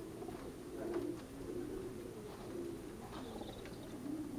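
Several racing pigeons cooing without a break, their low, wavering coos overlapping, with a few faint clicks among them.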